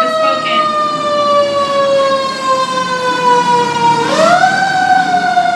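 Emergency vehicle siren wailing: one steady tone sliding slowly down in pitch, then swooping back up about four seconds in and beginning to fall again.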